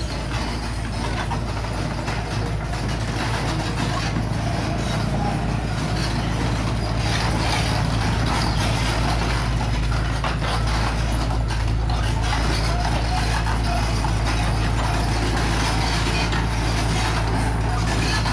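Mini crawler excavator's diesel engine running steadily as the machine travels on its tracks, growing a little louder as it comes closer.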